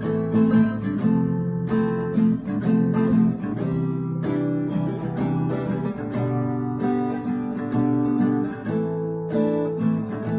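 Background music of strummed acoustic guitar chords.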